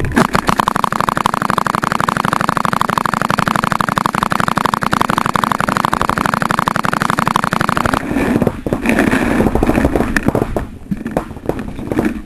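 Paintball marker firing a rapid, even string of shots close up for about eight seconds, then irregular shots and knocks.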